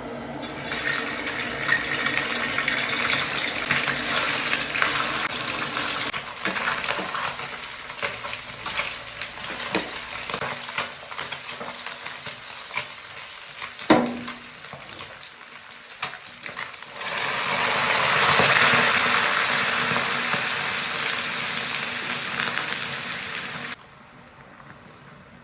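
Food sizzling and frying in a hot pan, with stirring and the odd knock of a utensil against it. The sizzle swells louder about two-thirds of the way through, then drops away suddenly near the end.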